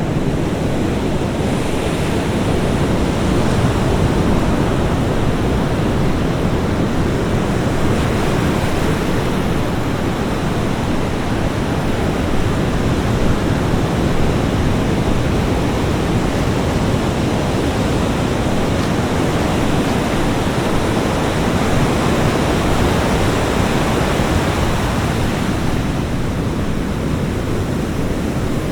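Ocean surf breaking on a beach: a continuous wash of waves with a deep rumble, swelling and easing slowly over several seconds.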